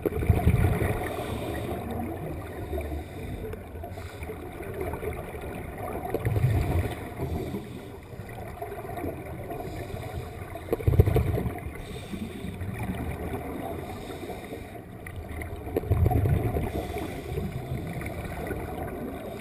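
Muffled underwater sound through a camera housing: a scuba diver's exhaled bubbles from the regulator gurgling in four bursts about five seconds apart, over a steady hiss of water.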